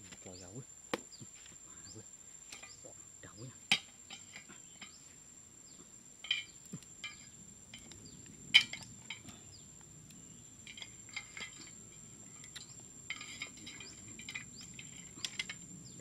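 Light clicks, taps and clatter of bamboo slats and small sticks being handled while a trap is set on dry dirt. The sharpest taps come near four seconds in and again past eight seconds.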